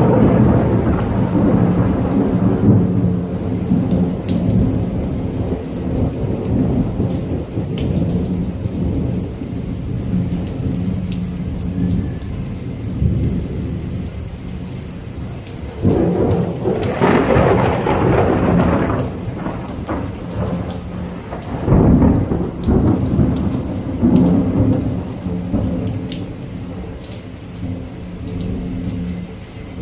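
Steady rain with continuous rolling thunder. The thunder swells into louder peals about halfway through and again a few seconds later, then settles back to a low rumble under the rain.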